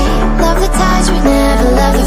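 Background music: an electronic pop track with sustained bass notes and held synth chords.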